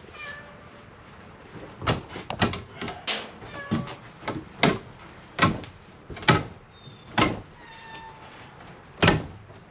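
Stapled porch screen being yanked off a wooden frame: about nine sharp snaps and rips at irregular intervals as the staples let go. A few faint cat meows come between the snaps.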